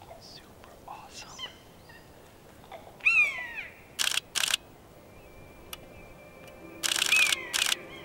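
Nikon D500 DSLR shutter firing in rapid bursts: two short bursts about four seconds in and two more near the end, the loudest sounds. A bird gives a descending call about three seconds in, and again under the last bursts.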